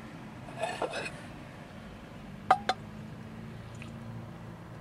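Spaghetti being served from a cooking pot into a ceramic mug: soft wet scraping and squishing about a second in, then two sharp clinks of the utensil against the pot or mug about two and a half seconds in, over a steady low hum.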